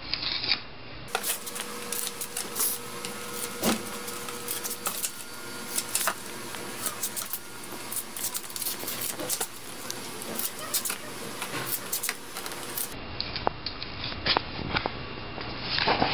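Sharpie marker scratching across rough concrete in short, irregular strokes as grid lines are drawn along a wooden straight edge, with light clicks and knocks as the board and marker are moved. A louder scuff comes near the end.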